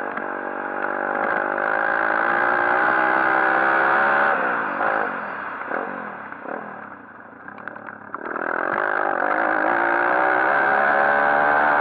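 140cc pit bike's single-cylinder four-stroke engine revving hard under throttle, rising in pitch, then easing off about four seconds in. A few sharp knocks are heard while it runs low. The engine opens up again and climbs about eight seconds in.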